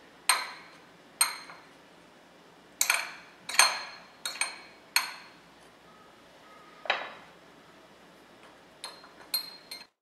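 A metal fork clinking against glass bowls while lifting cookies out of lemon juice and dropping them into powdered sugar. About ten sharp clinks, irregularly spaced, each with a brief glassy ring.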